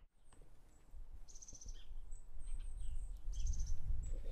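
Accessible pedestrian signal at a crosswalk chirping: two short, high electronic chirps about two seconds apart, over low street rumble.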